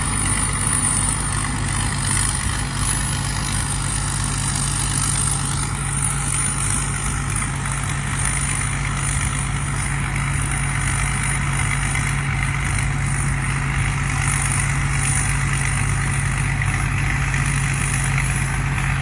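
Combine harvester engine running steadily at a constant pitch.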